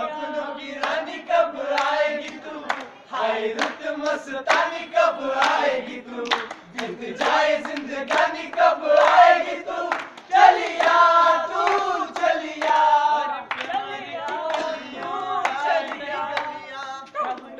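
A group of friends singing a song together without instruments, clapping along throughout.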